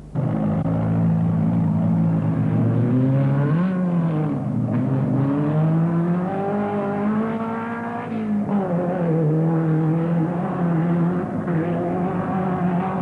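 Off-road race car engine revving hard, its pitch climbing and then dropping sharply twice, about four and eight seconds in, as it changes up through the gears.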